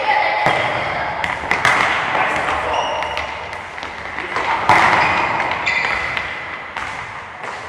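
Footballs being kicked and bouncing during practice: a run of thuds and sharp knocks, mixed with short high squeaks and a background of children's voices.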